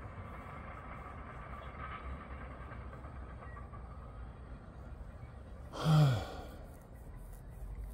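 A man's short sigh, falling in pitch, about six seconds in, over a faint steady background rumble.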